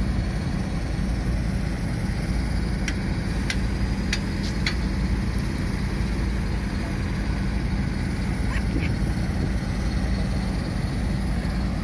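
Heavy diesel engines of farm tractors and a truck running steadily at low revs, a constant low rumble, with a few brief high chirps around the middle.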